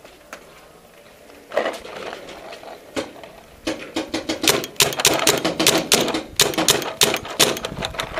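Paintball guns firing, a dense irregular run of sharp shots several a second in the second half, after a short cluster and a single shot earlier on.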